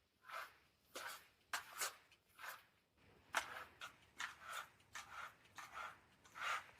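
A foley sound effect being performed: a rhythmic run of short, soft swishing strokes, roughly two a second, a few with a sharper attack.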